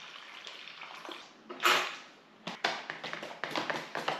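Water pouring from an enamel mug into a plastic stand-up food pouch, then one loud short clatter about a second and a half in, followed by the crinkling crackle of the pouch being handled.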